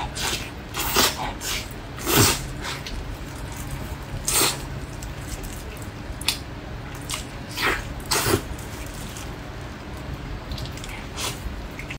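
Close-up mouth sounds of a person eating a braised pork hock: irregular wet, sticky bites, smacks and chewing, the loudest about two seconds in and again just past four seconds, over a steady low hum.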